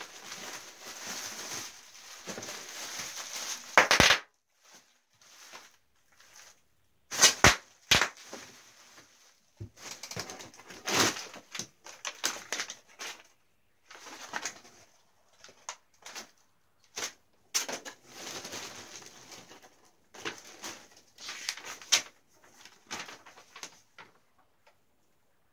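Bubble wrap and brown packing paper rustled and crinkled by hand in a cardboard box, in irregular bursts with a few louder sharp crackles.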